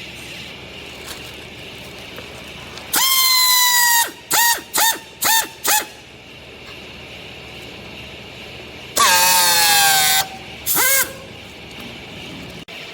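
A horn sounding: one long blast, then four quick toots, and about five seconds later another long blast that drops in pitch, followed by one more short toot, over a steady mechanical hum.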